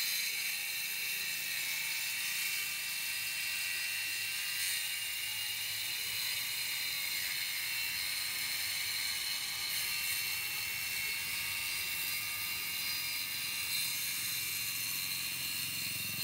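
Boda brushless twin-blade wall chaser running under load as it cuts a groove into a brick wall, a steady high-pitched whine with a hiss of grinding.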